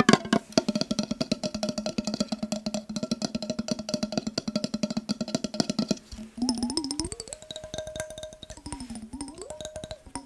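Very fast tapping on a glass mason jar, each tap ringing with a steady tone. About six seconds in, the ringing pitch starts sliding up and down as water moves inside the jar while the tapping goes on.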